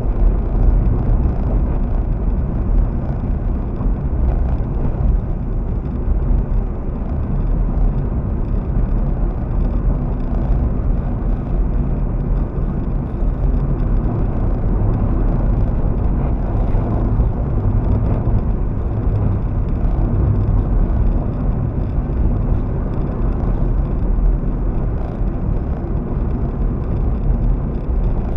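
A car driving steadily on a paved road, heard from inside the cabin: a low, even rumble of tyres and engine.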